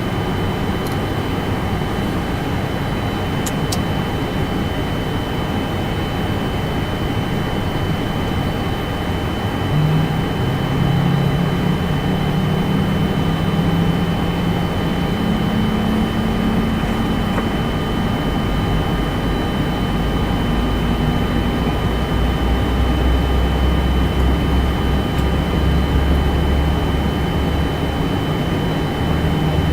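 Boeing 747-400 flight-deck noise during engine start: a steady hiss of cockpit air with a thin high whistle, joined about ten seconds in by a low hum from an engine spooling up, which rises slightly in pitch. A deep rumble builds after that and eases off near the end.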